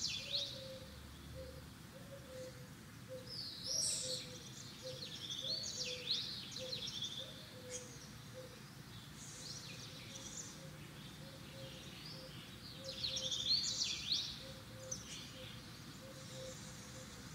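Small birds chirping and twittering in scattered bursts, with short pauses between them and the loudest bursts about four seconds in and again near fourteen seconds.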